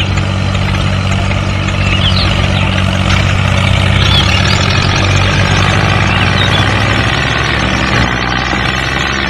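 Tractor engine running steadily with a low, even hum.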